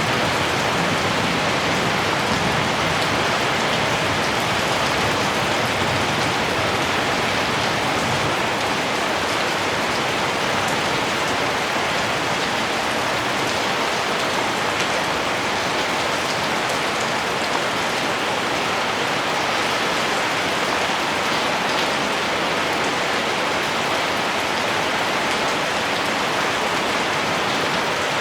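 Heavy rain falling steadily: an even, unbroken hiss of rainfall with no thunder or other sounds.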